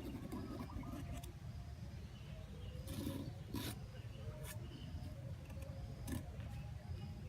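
Small birds chirping and squeaking in short repeated calls, with several sharp clicks or knocks in the middle, over a low rumbling background.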